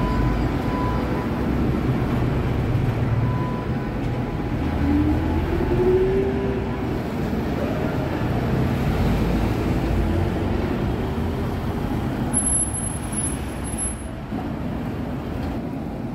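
Crotram TMK 2200 low-floor tram passing close by on street track: a steady rumble of wheels and running gear, with a brief rising whine about five seconds in and a thin high squeal lasting about a second and a half near the end.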